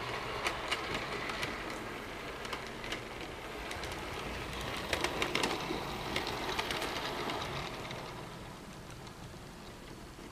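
HO-scale model train with a steam locomotive model running past on the layout track: a steady running noise with scattered sharp clicks from the wheels on the track. It is loudest about halfway through as the locomotive passes and fades near the end.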